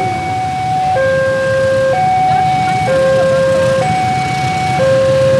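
Railway level-crossing warning alarm sounding its two-tone signal, a higher and a lower tone alternating about once a second, the warning that a train is approaching the crossing. A low engine rumble runs underneath.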